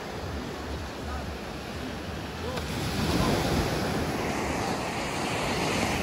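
Sea surf washing onto a sandy beach, with wind buffeting the microphone; the wash swells louder about halfway through.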